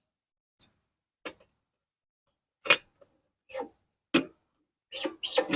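Parts of a kerosene heater knocking and clinking as they are handled and fitted back together during a wick change: single sharp knocks about a second apart, then a quick run of rattling clinks near the end.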